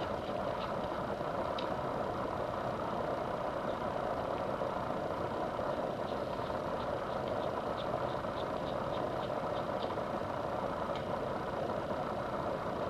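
A steady background hum, with faint small clicks scattered through it from a screwdriver undoing the tiny screws of a baitcasting fishing reel.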